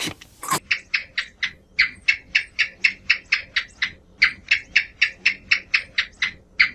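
An animal's rapid chattering call: short, high chirps about five to six a second, breaking off briefly about four seconds in and again near the end.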